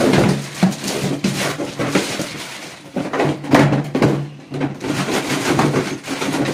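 Hollow white PVC flush cistern and its lid knocking and rattling as they are handled, with crinkling plastic wrap; irregular knocks and clicks throughout, over a low steady hum.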